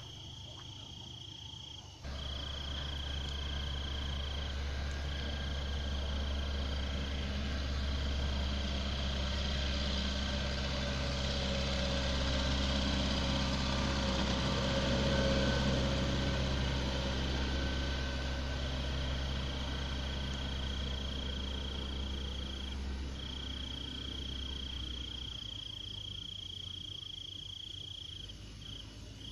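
Engine of a Case 580M backhoe running. It cuts in abruptly about two seconds in, grows louder toward the middle and fades away near the end. Crickets chirp steadily throughout.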